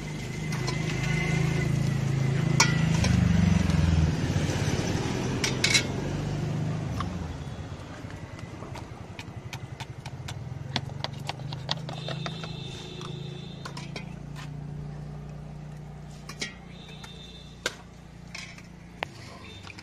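A motor vehicle's engine running close by, loudest in the first few seconds and dying away after about seven seconds. Later come scattered light clicks and clinks, and twice a brief high-pitched tone.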